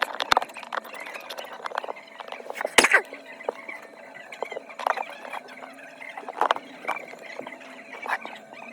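Small tools and fingers working on a phone during repair: scattered light clicks, taps and brief scrapes, with one louder knock about three seconds in.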